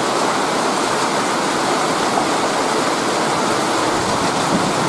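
Steady rain shower, an even hiss with no distinct thunderclap or rumble.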